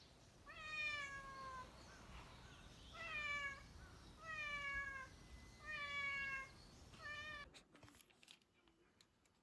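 Domestic cat meowing five times in a row, each meow long and falling in pitch, calling to its owner below.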